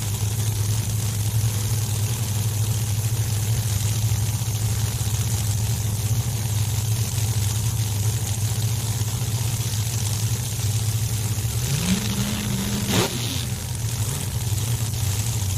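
Pro Modified drag cars' V8 engines idling with a loud, steady, lumpy note. About twelve seconds in, one engine's pitch rises in a short throttle blip and falls back.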